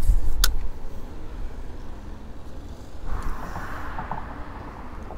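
Road traffic passing on a bridge: a low rumble that is loudest at first and fades, then swells again near the end. About half a second in there is one sharp click from the spinning reel being handled.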